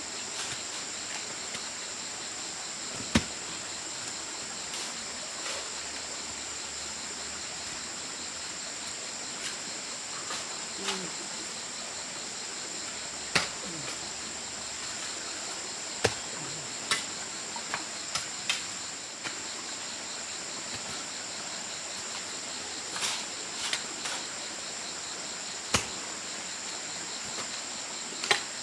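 A steady, high-pitched chorus of crickets or similar insects, with about nine sharp knocks at irregular intervals. The loudest knock comes about three seconds in.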